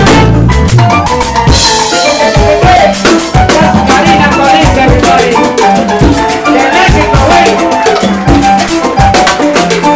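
Live salsa band playing: a timbales solo of dense drum strikes and rim hits over congas, electric bass and keyboard, with a güiro being scraped.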